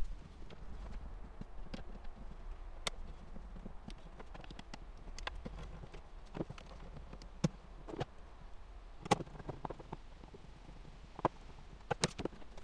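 Irregular light clicks and taps of a screwdriver and crimped wire terminals as the cables are screwed down to an EV charger's terminal block, over a steady low hum.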